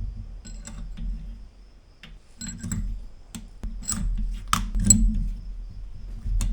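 Scattered sharp metallic clicks and clinks, with a low rumble of handling, as valves, springs, rotocaps and keepers are fitted into a Willys F-134 Hurricane engine. The loudest clicks come in a cluster about four and a half to five seconds in.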